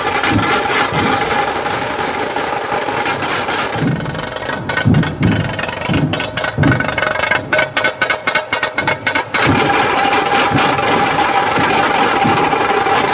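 Loud, dense street-procession din: a steady droning tone throughout, with a run of regular low drum thumps through the middle.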